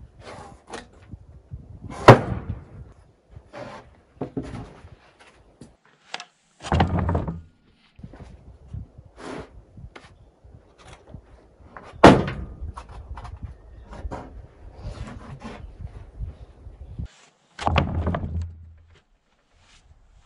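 Heavy slabs of freshly sawn English walnut being pulled off a milled log and set down: scattered wooden knocks and clunks, two loud thuds about ten seconds apart, and two longer rumbling slides.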